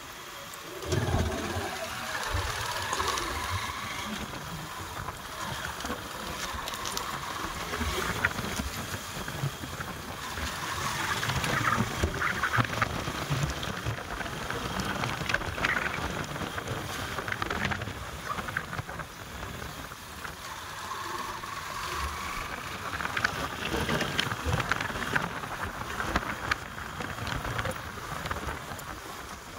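Motorcycle on the move: steady engine and road noise with wind rushing over the microphone.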